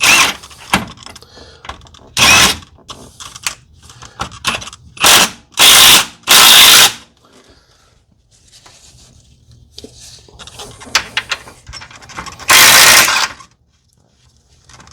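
A ratchet wrench clicking in short bursts with pauses between, with lighter metal-on-metal clatter of tools and parts, as the bolts of a lower control arm are run in during reinstallation.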